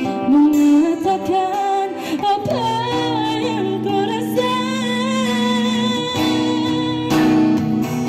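A young man singing a melody with held, wavering notes and bending runs, accompanied by an acoustic guitar.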